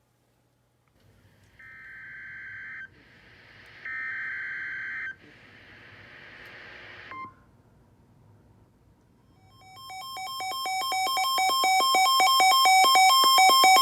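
NOAA Weather Radio EAS data header: two bursts of about a second each of shrill, warbling digital tones, with receiver hiss between them, marking the start of a new alert. About ten seconds in, a rapidly pulsing electronic alert tone fades in and grows loud.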